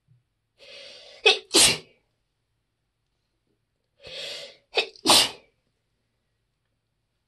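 A person sneezing twice, deliberately held quieter than usual. Each sneeze is a drawn-in breath followed by two quick bursts, the second the longer.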